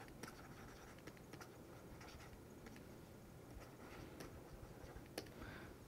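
Faint, irregular tapping and light scratching of a stylus writing on a tablet screen.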